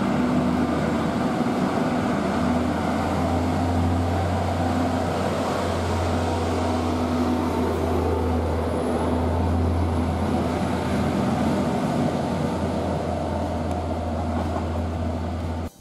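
ODEG Stadler GTW diesel multiple unit (class VT 646) moving along the platform with its diesel engines running: a steady low hum under a broad rumble, cut off abruptly at the end.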